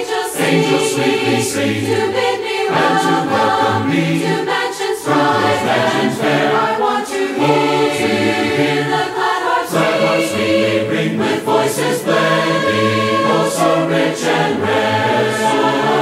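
A choir singing a Christian gospel hymn as background music, several voices in harmony holding notes that change every second or so.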